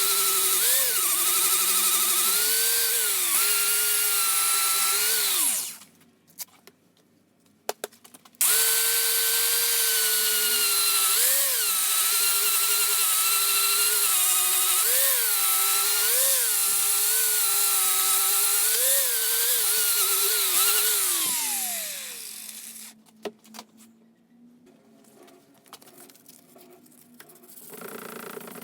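Small high-speed electric power tool running with a steady whine, its pitch briefly rising and dropping back again and again as the load on it changes. It switches off about five and a half seconds in, starts again about two and a half seconds later, and spins down with a falling whine a little after twenty seconds. Quieter scraping follows.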